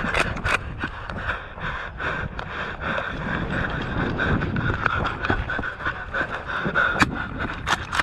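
A person panting while moving, with rustling and scraping. There are two sharp clicks in the first second and three near the end.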